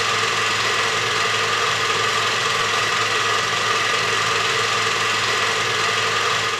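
Film projector running steadily, a constant mechanical whir.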